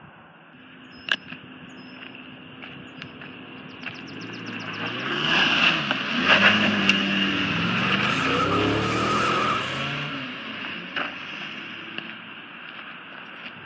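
A car driving past close by: engine and tyre noise swell up over a couple of seconds, stay loud for a few seconds with the engine pitch shifting, then fade away. A sharp click sounds about a second in.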